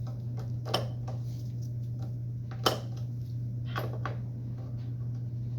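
Metal parts and hand tools clinking and tapping together while a chop saw's rotating base is being put back together: a handful of separate knocks, the loudest about halfway through, over a steady low hum.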